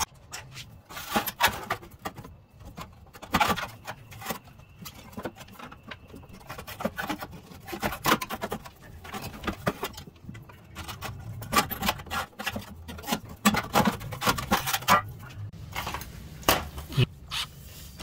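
Irregular clinks, knocks and scrapes of hand tools and loose metal parts being handled in a truck's engine bay while bolts are undone.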